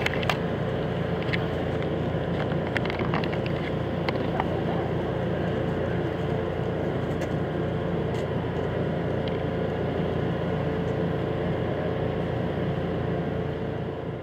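Modern diesel-electric road locomotive running steadily as it rolls slowly past: a loud, even engine drone with a steady hum, and a few sharp clicks in the first few seconds.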